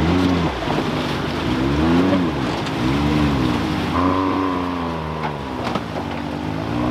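Off-road vehicle's engine revving up and down over and over as it crawls a rocky trail, the pitch rising and falling about once a second, with tyre and gravel noise beneath and a brief higher whine about four seconds in.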